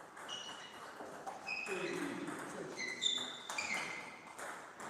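Table tennis rally: sharp clicks of the celluloid ball off the bats and table, and several short high squeaks of shoes on the floor.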